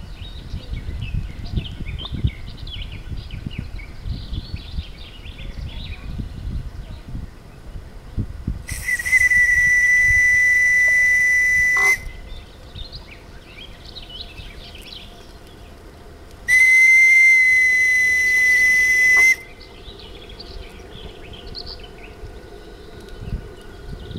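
Model steamboat's steam whistle giving two long, steady blasts of about three seconds each, a few seconds apart. Birds chirp in between, with low wind rumble on the microphone.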